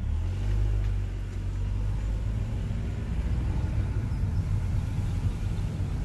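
Low, steady rumble of a car driving, with road and wind noise heard from inside the car. It starts suddenly at the beginning.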